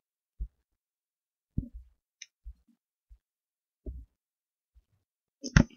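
Scattered faint thumps and taps from a computer mouse being moved, scrolled and clicked on a desk, ending in a sharper pair of clicks about five and a half seconds in.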